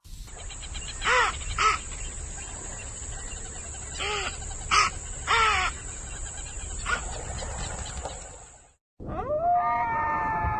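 An animal gives about five short calls that rise and fall in pitch, spaced irregularly, over a steady high whine. Near the end a different animal's longer call slides up and holds.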